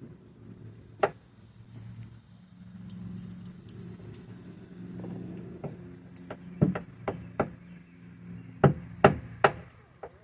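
Sledgehammer striking a flat-head screwdriver to drive out a Jeep Wrangler TJ door hinge bushing: one sharp strike about a second in, a run of four strikes past the middle, then three more near the end, over a steady low hum.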